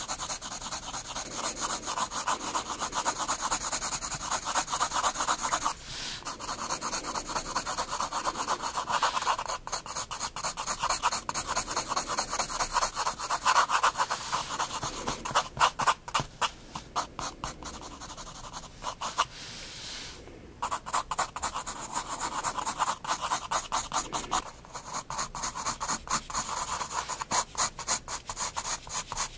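A soft 9B graphite pencil scratching over sketchbook paper in quick back-and-forth shading strokes, pausing briefly a few times.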